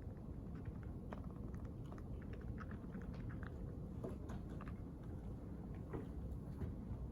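Quiet library room tone: a steady low hum with many small scattered clicks and taps, thickest a couple of seconds in.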